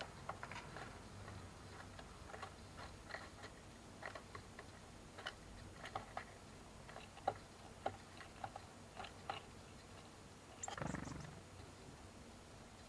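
Irregular light taps and clicks of small birds pecking at sunflower seeds on a wooden feeder, with a brief louder rustle near the end.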